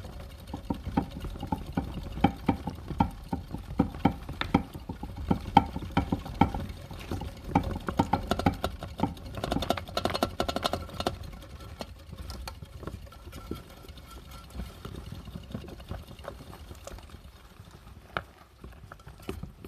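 Hamsters running in clear plastic exercise wheels: a rapid, irregular clicking and knocking of the wheels turning on their stands, busiest in the first half and thinning out over the second.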